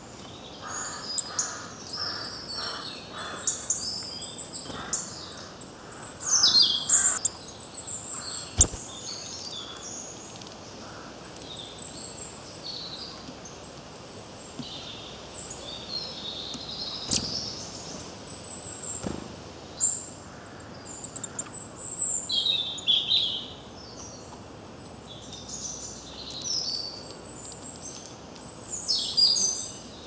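Wild woodland birds chirping and calling, several at once, in short high-pitched notes and trills, with a few sharp taps.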